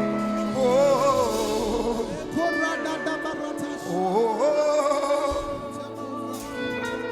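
Live worship music: a singer's wordless, wavering vocal runs over held backing chords, between sung lines of a slow gospel song.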